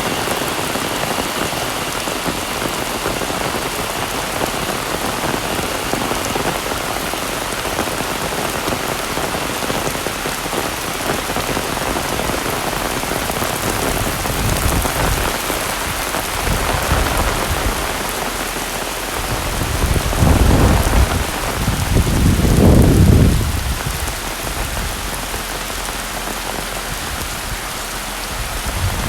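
Heavy rain falling steadily, with deep low rumbles swelling up twice in the latter half, the second one the loudest.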